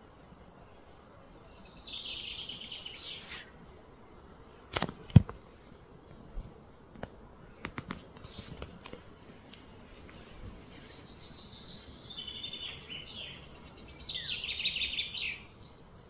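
A songbird sings twice, each time a quick run of high chirping notes, the first run sliding down in pitch. A few sharp clicks fall about five and eight seconds in, one of them the loudest sound.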